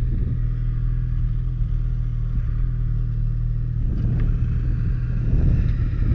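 Snowmobile engine running steadily under way, picked up on the moving sled, with a second snowmobile close alongside about four seconds in.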